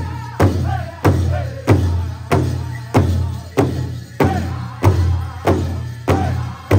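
Powwow drum group beating a large shared drum in a steady beat, about three strokes every two seconds, with the singers' voices over it.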